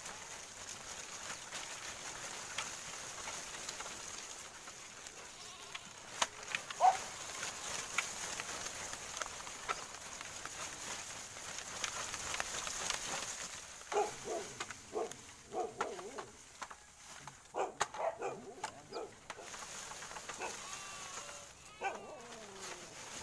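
Leaves and twigs rustling as a cloth sack on a pole is pushed up among branches under a red ant nest, over a steady high hiss. Several short bleat-like animal calls come in the second half.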